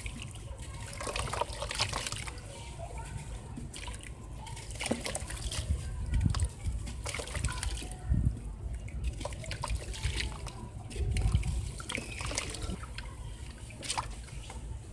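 Soft sand-cement chunks being squeezed and crumbled by hand in a bucket of water: wet crackling and crumbling with water trickling and splashing, and a few dull thumps about 6, 8 and 11 seconds in.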